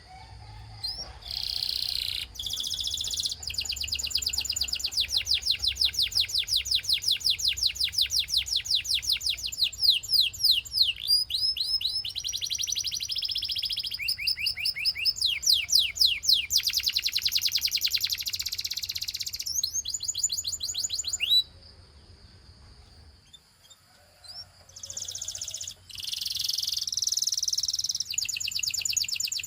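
Domestic canary singing: fast, high-pitched trills and rolls of rapidly repeated notes. The song breaks off for about three seconds after the middle, then resumes.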